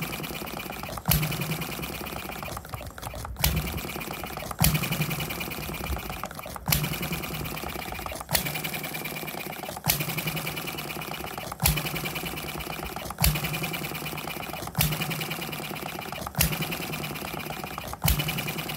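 Alyn Foundry RLE model hit-and-miss stationary engine running: a sharp firing bang about every one and a half to two seconds, and quick steady clicking of the moving parts as the flywheels coast between firings.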